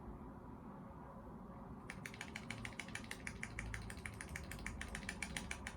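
A computer keyboard key tapped rapidly over and over, several taps a second, starting about two seconds in: the F12 key hammered during start-up to bring up the boot menu. A faint low hum runs underneath.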